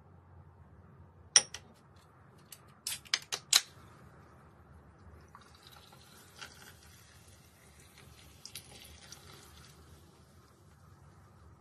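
A few sharp clicks, the loudest about a second and a half in and a quick cluster around three seconds in, then carbonated water poured from a can into a glass over ice and fruit, fizzing for about four seconds.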